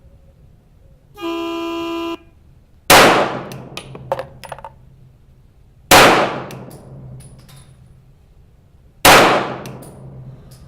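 A range start tone sounds for about a second, then a CZ P-10F 9mm pistol fires three single shots about three seconds apart, each echoing off the range walls and followed by small metallic tinks.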